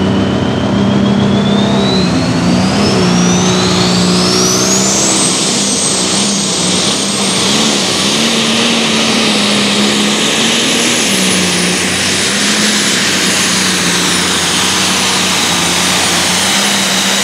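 Heavy super stock pulling tractor under full power, its engine running hard and steady under load. A high turbocharger whine rises over the first five seconds and then holds.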